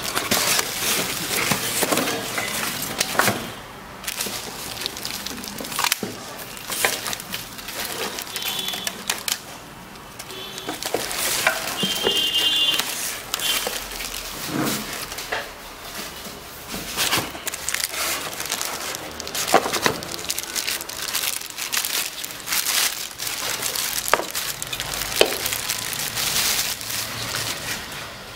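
Plastic wrap and cardboard packing crinkling and rustling in irregular crackles as a glass pot lid is unwrapped and lifted out of its box.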